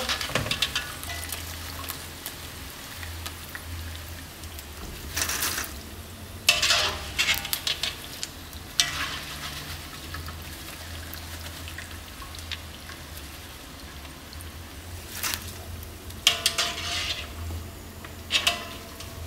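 Pork back-fat chicharon sizzling in hot oil in a wok. A wire mesh strainer scrapes and rattles in short bursts, several times, as the pieces are scooped out and tipped into a wire draining basket.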